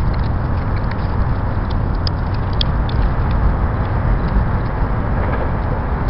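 Sped-up outdoor ambience: a steady low rumble with a few faint scattered clicks, playing seven times faster than real time.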